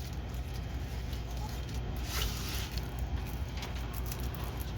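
Soft rustling and scratching as diamond painting packaging and canvas are handled, over a steady low hum.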